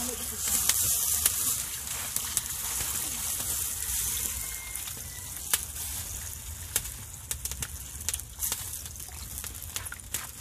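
Water poured into a hot metal pot of fried chicken, hissing and sizzling loudest at first and slowly dying down as the pot fills. A wood fire crackles underneath with scattered sharp pops.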